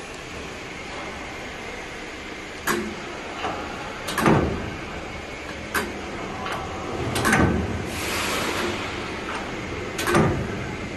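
Sharp metallic clunks from a CNC lathe's tool post and carriage, about five of them a second or two apart, some doubled, over a steady machine hum.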